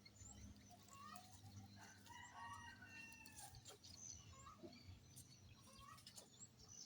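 Faint chickens clucking and calling, many short calls with a longer held call about two to three seconds in.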